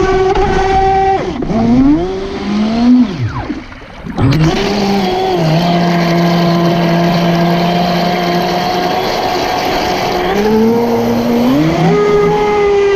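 Pro Boat Impulse 31 RC boat's brushless electric motor whining at speed, heard close from the deck, with water rushing and spraying off the hull. About a second in the whine slides down as the throttle comes off and almost stops near four seconds, then climbs back and holds steady. It dips again near the end before rising once more.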